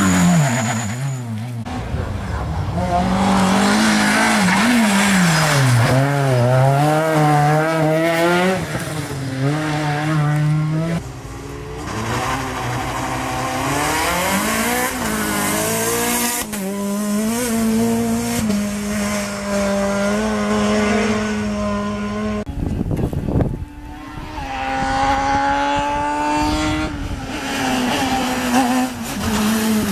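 Rally car engine being driven hard, its pitch climbing and dropping again and again as it revs through the gears and lifts for corners, with tyre squeal. A short, loud rushing burst of noise comes about three quarters of the way through.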